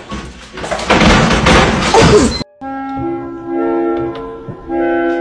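A loud clattering crash with sharp knocks lasting about two seconds, cut off suddenly; then a simple tune of held notes, like a woodwind or synth melody.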